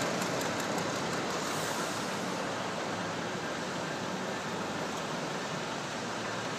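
Road traffic on the street below: a steady rush of passing cars, tyres and engines, with a little more hiss in the first two seconds.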